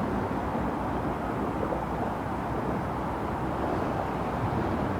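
GO Transit commuter train rolling by as it moves off the siding, a steady rumble with no horn.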